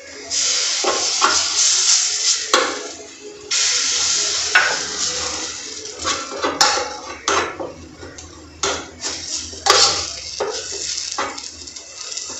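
A metal spoon stirring and scraping a thick biscuit-and-milk mixture in a non-stick pan on a gas flame, with a hissing sizzle. There are two long loud scrapes in the first five seconds, then many short scrapes and clinks of the spoon against the pan.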